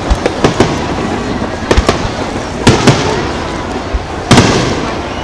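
Aerial firework shells bursting overhead: a series of sharp bangs, several in quick pairs, with the loudest about four seconds in and a rumbling echo trailing after them.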